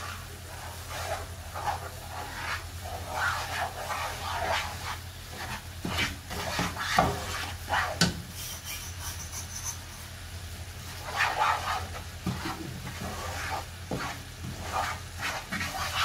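Wooden spatula stirring and scraping roasted semolina into bubbling caramelised sugar syrup in a non-stick pan, with a sizzle under it and a few sharp knocks of the spatula against the pan.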